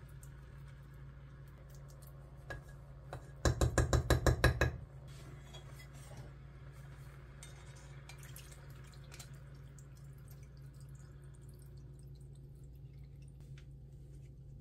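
Kitchen handling sounds at a cooking pot: a quick run of about ten rapid, loud knocks a few seconds in, then light scattered clicks, over a steady low hum.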